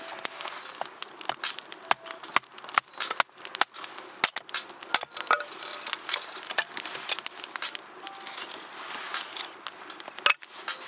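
Freshly lit wood campfire crackling: irregular snaps and pops, with one sharp loud crack near the end.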